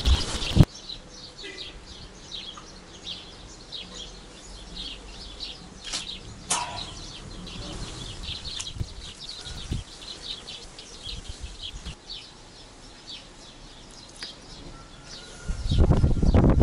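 Birds chirping repeatedly in short, high calls. A loud, noisy rustle comes at the very start and again near the end.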